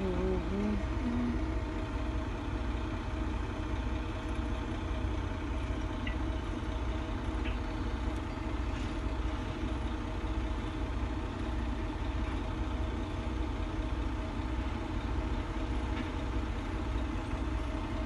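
A steady low mechanical drone with an even pulsing in the bass, like an idling engine, with a few faint ticks.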